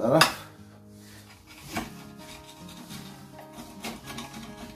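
Kitchen knife sawing through smoked haddock and its tough skin, the blade scraping and knocking on the chopping board. The loudest stroke comes just after the start, another about two seconds in and a lighter one near the end.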